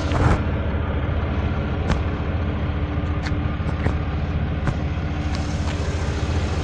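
Ram 3500 dually pickup's engine idling steadily, with a few light clicks scattered through it.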